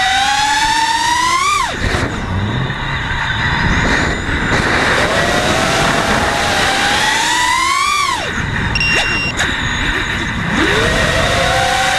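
Nighthawk FPV race quadcopter's brushless motors whining: the pitch climbs steadily as the throttle is held up, then drops sharply about a second and a half in and again around eight seconds, with a rushing noise between the climbs, and starts climbing again near the end.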